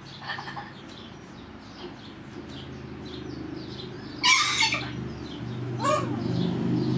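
A corella chattering to itself, with a few small calls at the start, a loud harsh screech about four seconds in and a shorter gliding call near six seconds. Faint chirps from other birds run underneath, over a low hum that grows louder toward the end.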